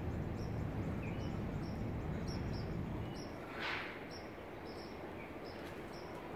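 Outdoor ambience: a steady low rumble that eases a little about three and a half seconds in, with short high chirps repeating about twice a second and a brief rustle just before the rumble eases.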